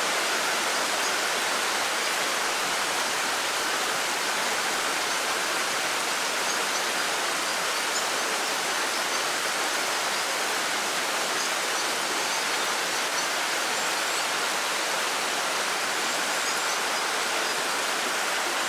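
Heavy monsoon rain falling steadily: an even, unbroken hiss of downpour.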